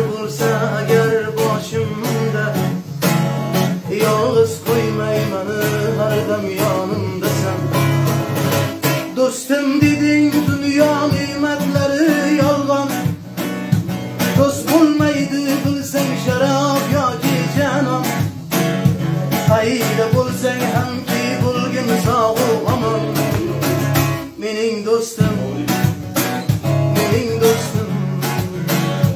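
Acoustic guitar playing an instrumental passage: plucked melody runs over a moving bass line, with a short dip near the end.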